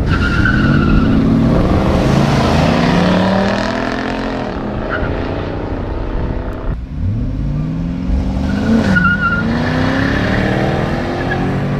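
Pontiac drag cars accelerating hard: engine revs climb and drop back several times with the gear changes, with a short tire squeal right at the start. About seven seconds in the sound switches abruptly to another car revving up from the line, with a brief tire chirp about two seconds later.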